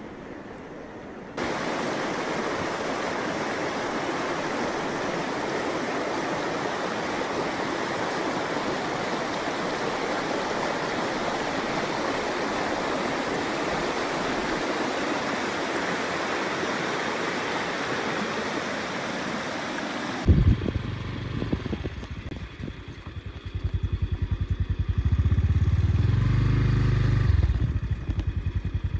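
Steady rushing of a fast, swollen river for most of the time. About two-thirds of the way through it cuts to a vehicle engine running, stepping up and down in pitch, with a gusty rumble as from a moving vehicle.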